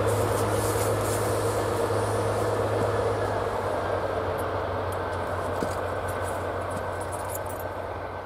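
Diesel locomotive hauling a train of passenger coaches, moving away: a steady engine hum with the rolling noise of the wheels on the rails, fading steadily as the train recedes.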